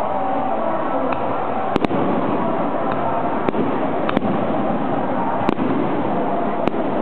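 Aerial fireworks shells bursting with sharp bangs: a double bang about two seconds in, then single bangs roughly every second. Steady crowd chatter runs beneath them.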